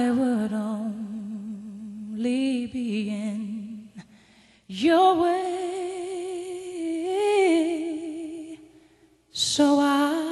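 Background music: a slow song in which a voice sings long held notes with strong vibrato, in three phrases with short pauses between them.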